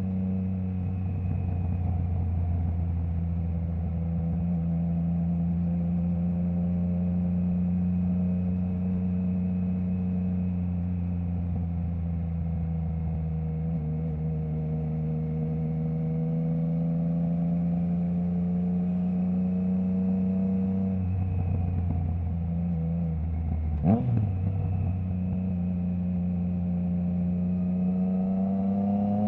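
Triumph Trident 660's three-cylinder engine through a Zard stainless full exhaust with the baffle removed, running at fairly steady revs under way. There is a quick rise and fall in revs about 24 seconds in, and the revs start climbing again near the end.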